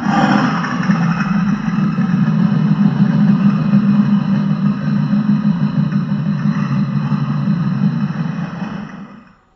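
A steady engine-like rumble, loud and unchanging, that fades out near the end.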